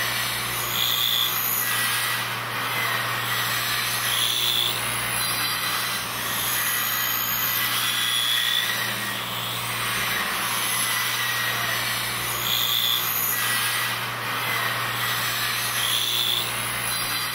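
Small electric lathes cutting tagua (vegetable ivory) seeds into button discs: a steady motor hum under a continuous cutting noise. Short high whines come and go every couple of seconds.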